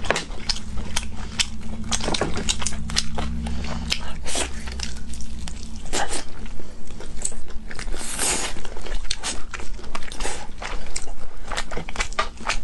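Close-miked biting and chewing of glazed roasted chicken wings: wet, sticky smacks and clicks of mouths, lips and meat, with many short sharp snaps throughout.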